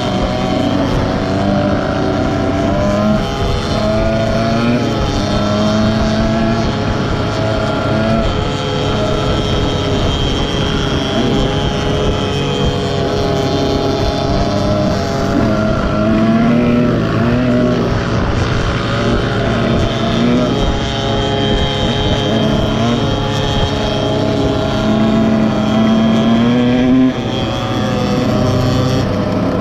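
Small pit bike engines running at speed, their pitch rising and falling with the throttle. The level drops suddenly near the end.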